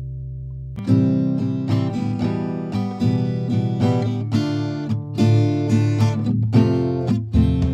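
Background music: a held low chord, then about a second in an acoustic guitar starts strumming and picking quick notes.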